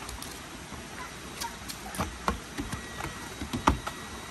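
Footsteps of an adult and two small children climbing wooden steps onto a wooden footbridge: irregular knocks on the planks, starting about a second and a half in and growing louder and closer together near the end.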